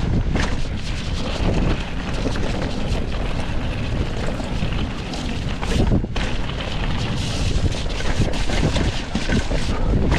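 Mountain bike rolling down a dirt singletrack, its tyres and frame knocking and rattling over bumps, under heavy wind rumble on the helmet or chest camera's microphone.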